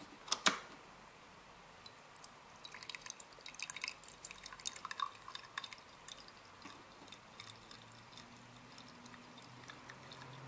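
Gasoline dribbling and dripping from a Generac iQ2000 inverter generator's disconnected fuel line into a small glass, after a sharp click about half a second in. The flow is slow but steady through the fuel filter, a sign that the fuel shutoff switch is working.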